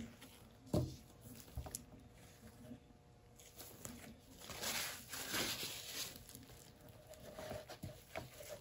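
Quiet handling sounds with gloved hands: a sharp knock about a second in as a plastic straw is set down, a soft rustle midway, and a few light clicks near the end.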